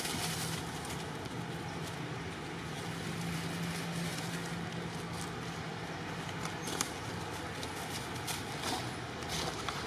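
Outdoor background with a steady low hum, like a distant engine, and a light crackle of dry leaves now and then.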